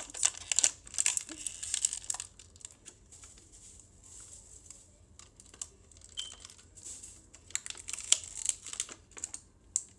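Clear plastic toy packaging crinkling and clicking as a small figure is worked out of it by hand. There is a burst of crinkles in the first couple of seconds, quieter fiddling in the middle, then more crinkling near the end.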